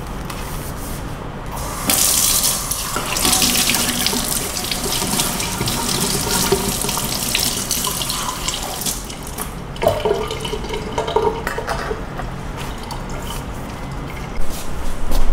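Kitchen tap running into a stainless steel sink while a mug is rinsed under it, starting about two seconds in. After the water stops, a few clinks of dishes and a short clatter of knocks near the end as items are set down.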